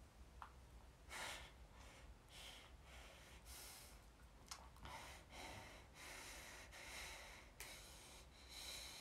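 Near silence: room tone with faint soft noises coming every second or so and three light clicks as a phone is handled.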